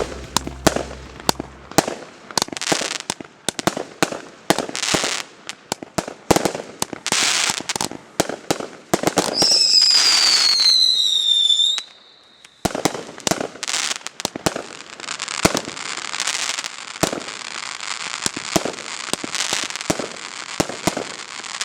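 Consumer aerial fireworks from a sampler assortment going off: a rapid series of sharp pops and crackles. About nine seconds in, a whistle falls in pitch for a couple of seconds. After that comes a stretch of dense crackling.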